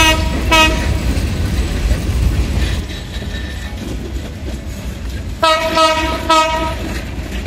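Kurigram Express intercity coaches rolling past with a steady low rumble, while a horn gives two quick double toots, one right at the start and another about five and a half seconds in.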